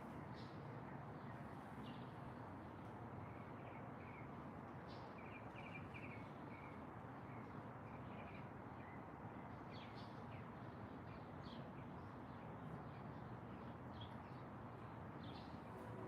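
Wild songbirds giving scattered short, high chirps, with a quick run of twittering notes a few seconds in, over a steady low background rumble of outdoor ambience.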